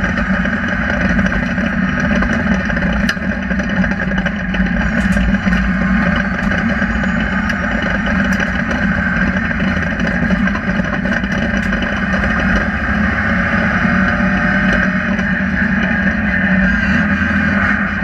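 Rally car engine running at speed at fairly steady revs, heard from inside the stripped, roll-caged cabin. Occasional light clicks sound over it.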